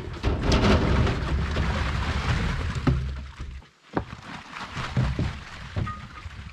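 Fresh morel mushrooms tipped by the crateful into a wooden drying box: a dense rush of soft patter and low thudding for nearly four seconds, then after a brief pause the mushrooms land as separate knocks on the wood.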